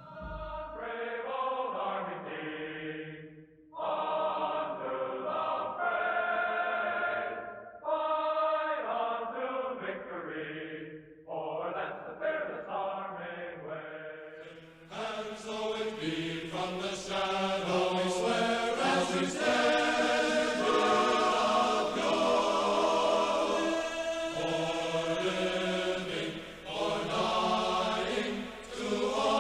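Background music: a choir singing slow phrases with short pauses, the sound growing fuller and brighter about halfway through.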